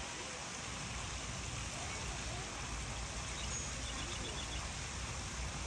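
Steady rushing outdoor background noise, with faint distant voices and a few faint high chirps about halfway through.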